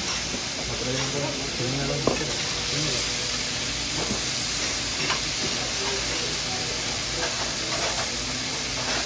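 Kobe beef steak sizzling steadily on a hot teppanyaki griddle, with a few sharp metal clicks of a spatula and fork against the steel plate, the loudest about two seconds in.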